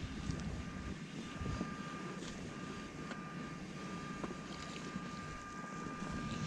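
Wind buffeting the microphone on open water, a low rumbling hiss, with a faint steady thin whine and a few light ticks over it.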